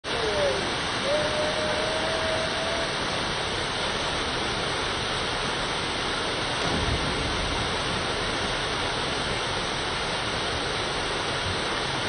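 Waterfall pouring steadily into a rock pool, an even rushing hiss. A thin held tone sounds over it in the first three seconds, and a low splash comes about seven seconds in as a person drops into the pool.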